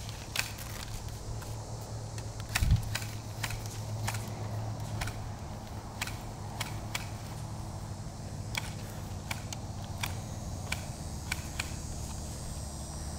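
Airsoft guns firing scattered single shots at a distance, sharp faint clicks roughly one or two a second, with a dull bump on the microphone between two and three seconds in.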